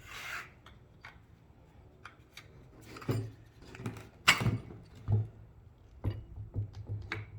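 Scattered clicks and small knocks of metal and plastic parts being handled while a screw is driven into a roof crossbar with an Allen key, the loudest knock about four seconds in.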